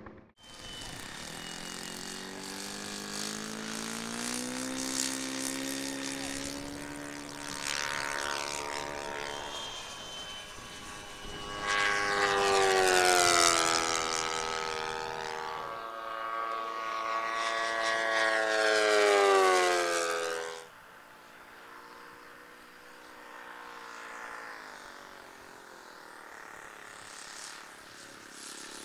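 Supercharged YS 91 FZ four-stroke glow engine of a radio-controlled P-51 Mustang racer model at full throttle, making several fast low passes: the engine note rises and falls with each pass. It is loudest in the passes near the middle and about two thirds through, then drops off suddenly to a fainter, distant drone.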